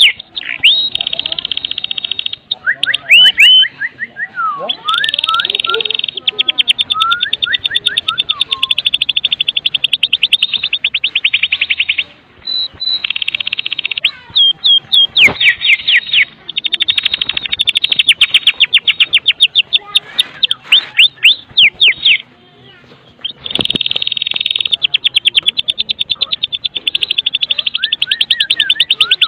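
White-rumped shama (murai batu) giving its rattling 'kretekan' call: long runs of very fast repeated high notes, broken by a few whistled glides and steeply falling notes. The bird pauses briefly about 22 seconds in.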